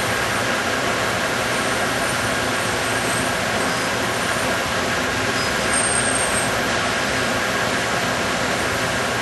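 Conveyor reflow oven running: a steady, even mechanical rush from its fans and mesh-belt drive as the belt carries a circuit board in.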